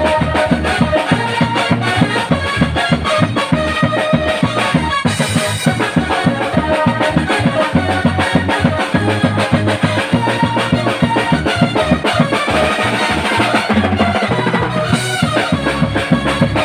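Loud music with a fast, steady drum beat under a pitched melody, the accompaniment for a phá hoàng funeral martial dance.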